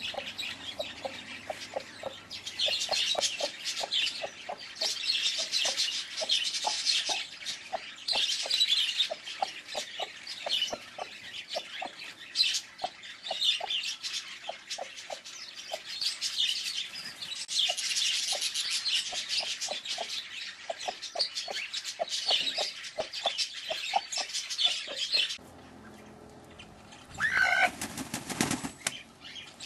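A broody hen clucking: a long, steady run of short low clucks, about two or three a second. Near the end comes one loud call from the hen.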